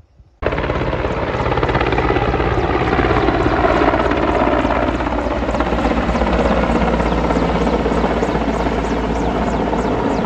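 Helicopter running close by with a steady, loud rotor chop. The sound cuts in abruptly about half a second in.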